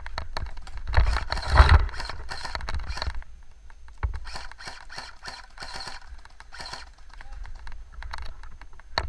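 Irregular crunching and rustling clicks from a person moving on foot through dry marsh vegetation. The movement is densest and loudest about one to two seconds in, with low bumps on the microphone, then thins out after about three seconds.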